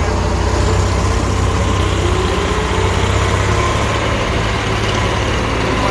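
Combine harvester's diesel engine running steadily with a deep low hum, easing slightly about two-thirds of the way through.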